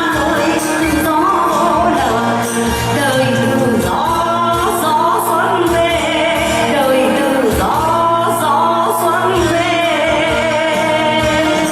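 A song sung with instrumental backing music, the voice gliding and bending in pitch over held accompanying tones and a steady low beat.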